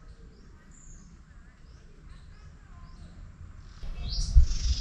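Faint bird chirps and short calls in dry woodland. Near the end a much louder rushing noise with low thumps sets in.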